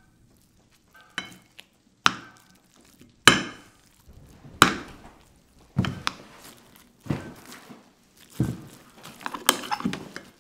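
A slow, regular series of heavy, echoing thuds, about eight of them, a little over a second apart.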